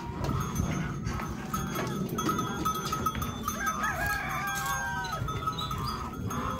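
Chickens in a coop calling and clucking, with several drawn-out calls that arch and fall in pitch about halfway through.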